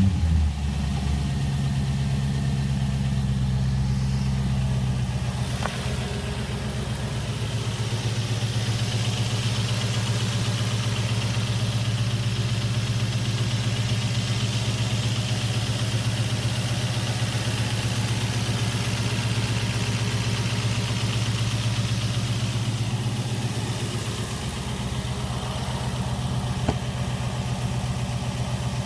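Audi D3 A8 engine idling steadily just after starting, with a fast ticking noise that appeared after an oil change; the idle settles slightly about five seconds in.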